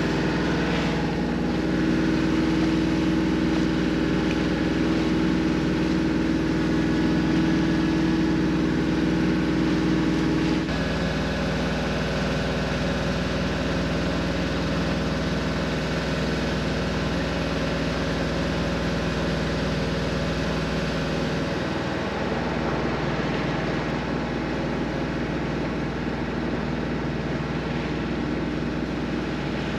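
Sailboat's inboard engine running steadily, motoring the boat along in a flat calm, with water washing past the hull. The engine's tone changes abruptly about ten seconds in.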